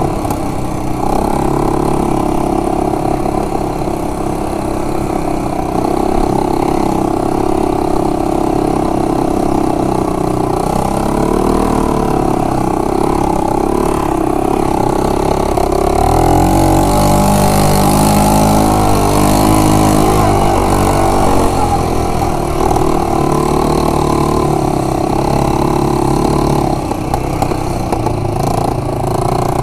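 Yamaha Grizzly 125 quad bike's small single-cylinder four-stroke engine running as it is ridden off road, the engine note rising and falling with the throttle. It revs harder for several seconds past the middle, then settles back.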